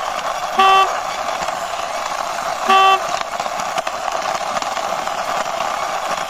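Two short, loud horn toots about two seconds apart, over a steady rushing noise.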